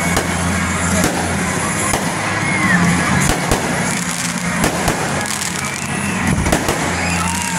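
Aerial fireworks bursting overhead: an irregular run of sharp bangs and pops, one after another.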